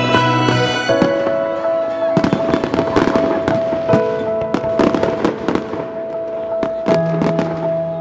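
Aerial fireworks display: a rapid series of sharp bangs and crackles from bursting shells, densest about two to four seconds in, over music with long held notes.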